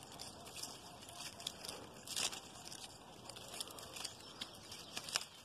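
Leaves and twigs rustling and crackling as a dry stalk is worked up through the branches to hook a ripe tumbo (banana passionfruit). There are scattered sharp clicks and one louder crack a little over two seconds in.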